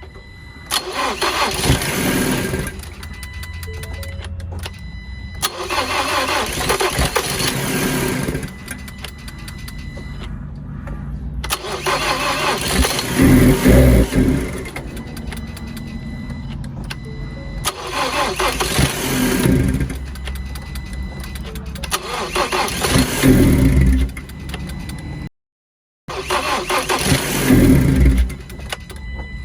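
2019 Ford Transit Connect cranked on its starter about six times in a row, each attempt a few seconds long. On several it fires and revs briefly, then dies: the engine has fire but won't keep running.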